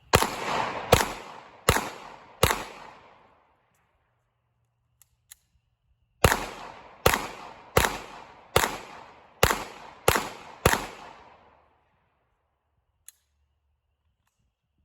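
Gunshots fired at a steady pace: four shots about three-quarters of a second apart, then, after a pause of a few seconds, a string of seven more. Each shot trails off in an echo.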